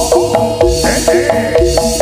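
Javanese gamelan accompaniment for a jaranan dance: a fast, even, repeating figure of struck pitched metal over low drum beats.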